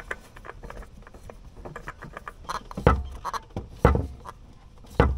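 Hands fumbling a new spin-on oil filter onto its threads by feel: small clicks, scrapes and rustles of fingers and filter against metal and hoses, with three louder thumps about a second apart in the second half.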